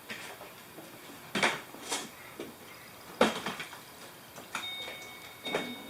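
Four sharp knocks or clunks at irregular intervals, followed near the end by a thin, steady high-pitched tone.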